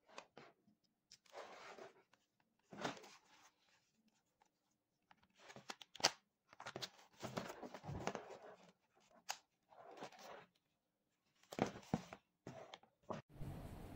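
Motocross knee guard being handled: its strap is pulled and fastened, giving a string of short rasping tears, with a few sharp clicks from the plastic shell and strap tab.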